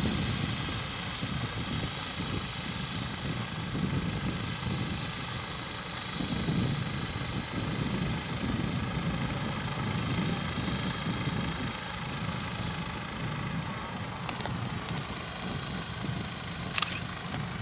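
Airship's propeller engines running steadily, a continuous droning hum, with gusty wind rumbling on the microphone. A sharp click about a second before the end.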